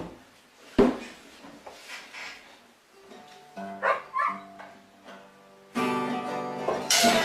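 Acoustic guitar music that comes in about three and a half seconds in and grows louder near the end, after a single sharp knock about a second in.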